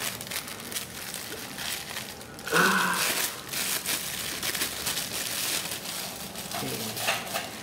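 Clear plastic wrapping crinkling and rustling as a watch is pulled out of it by hand, irregular and crackly, with a louder stretch about two and a half seconds in.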